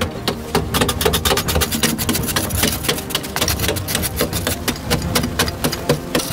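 Hand tools chopping and scraping into packed earth as a tunnel is dug, a fast, dense run of knocks and scrapes several a second.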